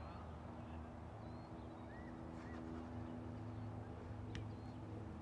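Faint outdoor ambience: a steady low hum, with a few short high bird chirps and a single sharp click near the end.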